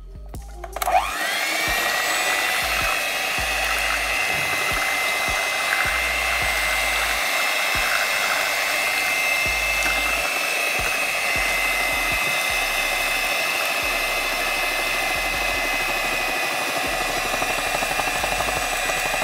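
Electric hand mixer starting up about a second in, its motor whine rising and then holding steady as the beaters churn cake batter while dry cake mix is poured in.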